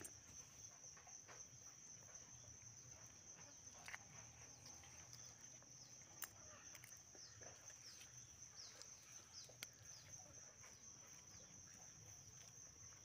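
Near silence outdoors: a faint steady high-pitched hum, with a run of short falling bird chirps in the middle and a few light clicks.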